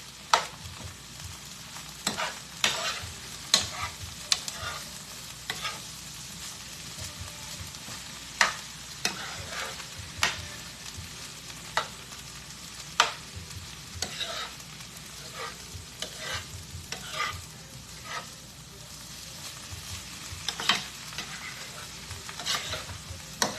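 Cauliflower fried rice with freshly added bean sprouts sizzling in a hot pan while a utensil stirs it, with a steady frying hiss and irregular clacks and scrapes of the utensil against the pan.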